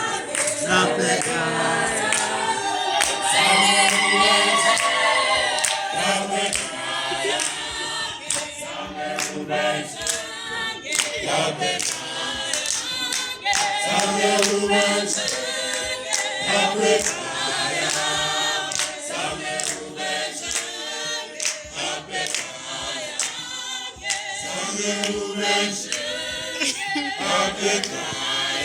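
A choir singing a cappella, several voices in harmony over a recurring low bass line.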